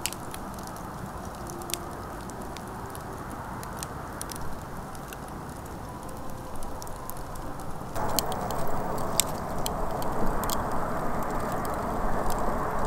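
Wood fire burning in a folding fire stand, crackling with scattered sharp pops. About eight seconds in it gets louder, the pops coming more often over a steadier hiss.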